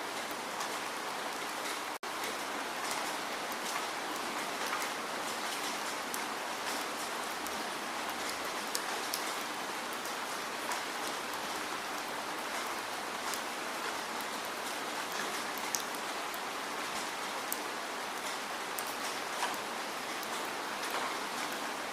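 Steady rainfall: an even hiss of rain with scattered sharper drop ticks. There is a split-second break in the sound about two seconds in.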